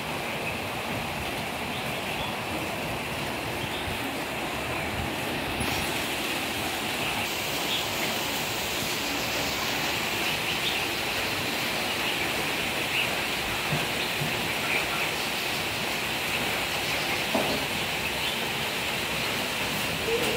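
Steady rushing noise with faint scattered clicks, a little louder after about six seconds.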